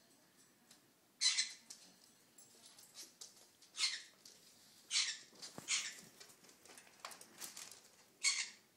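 Macaw making five short, hissy, raspy noises at uneven intervals, with faint clicks and scratches in between.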